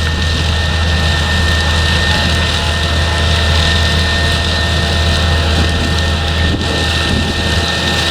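Potato harvesting machinery running steadily under load: a loud, even engine drone with a steady high whine over it.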